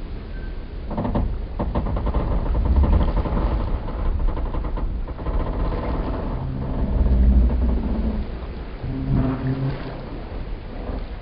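Wooden boat and pier timbers creaking and groaning over a low rumble of water against hulls and pilings. A run of fine creaks comes about a second in, and longer, lower groans come around the middle and again near the end.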